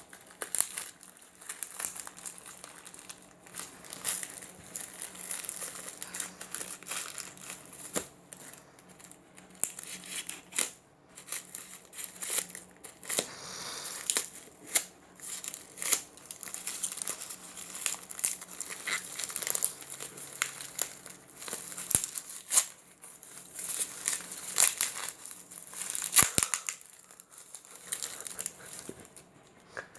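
Plastic and paper packaging crinkling and being torn open in hands, with many irregular sharp crackles and clicks.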